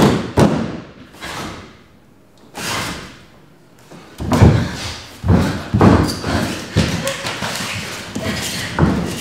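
Bare feet landing and stamping on a dance-studio floor as several dancers rehearse a movement sequence: irregular heavy thuds, a few at first, then coming thick and fast from about four seconds in, each with a short echo of the room.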